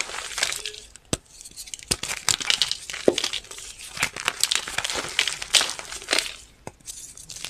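Reformed chalk crunching and crumbling, a run of irregular crisp snaps and crackles with brief lulls about a second in and near the end.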